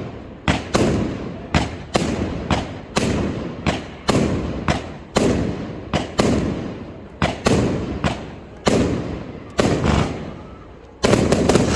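Aerial fireworks bursting one after another, each a sharp bang with a rolling echo that dies away, about one to two a second. Near the end the bangs merge into a dense, rapid crackling.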